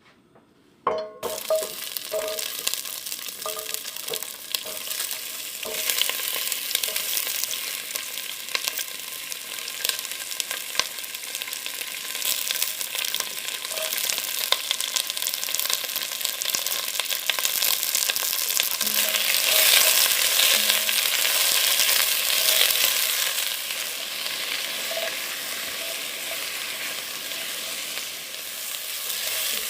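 Food sizzling in hot oil in a pan, starting abruptly about a second in as it hits the oil, with the scrape and clicks of a utensil stirring it; the sizzle grows louder around two-thirds of the way through.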